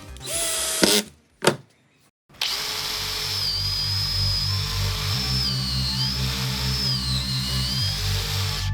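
A power tool's motor running in short bursts, then steadily with a high whine that dips in pitch now and then, as if under load.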